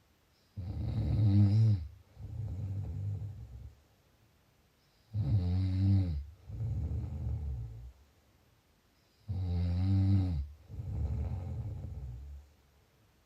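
A sleeper snoring in a slow, even rhythm: three breaths about four seconds apart, each a loud, low, buzzing snore followed at once by a softer, shorter one.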